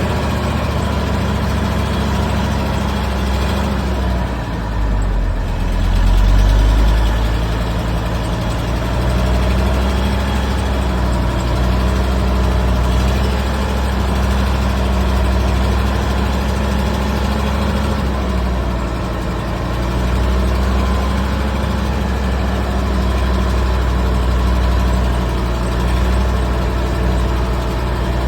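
Heavy diesel engine running steadily with a low, even drone that swells briefly about six seconds in.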